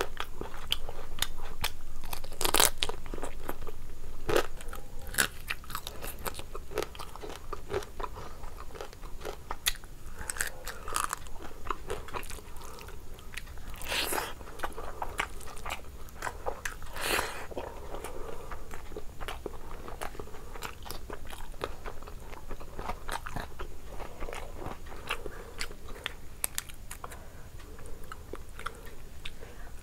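Eating sounds: chewing and crunching with many sharp clicks and cracks, a few louder cracks standing out. Near the end, crab shell is broken apart by hand.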